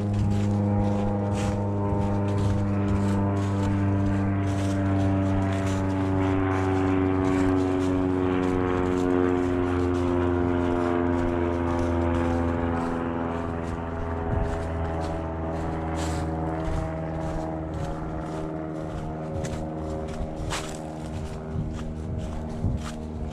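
Steady engine drone with a strong low hum that fades away about halfway through, leaving a fainter drone, with scattered small clicks and knocks.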